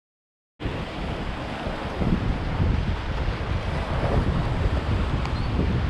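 Surf washing against the rocks of a jetty, mixed with wind buffeting the microphone, a steady low noise with no let-up. Silence for a moment at the very start.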